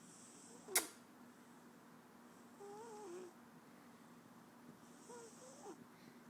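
A sleeping house cat snoring, three breaths about two and a half seconds apart. A single sharp click sounds about a second in.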